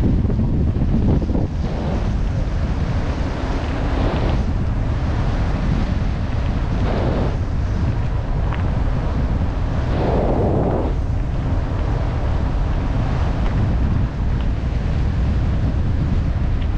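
Wind buffeting the microphone of a moving bicycle-mounted camera, with the rumble of mountain bike tyres rolling on a gravel path, swelling briefly a few times.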